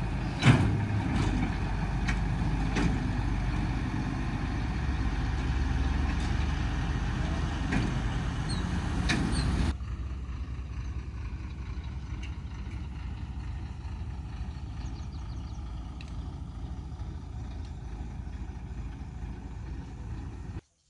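Diesel combine harvester engine running at idle close by, a steady low hum with a sharp knock about half a second in. About ten seconds in the sound drops suddenly to a quieter, steady engine hum.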